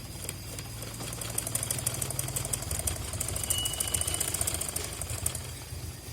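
Electric sewing machine running, its needle mechanism stitching with a rapid, even clatter over a low motor hum; the stitching starts about a second in and dies away near the end.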